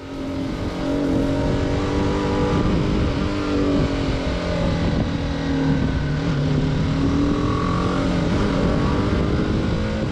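Single-cylinder adventure motorcycle engine running under way, its pitch sinking and climbing several times as the rider eases off and opens the throttle through bends, over steady wind and road rush.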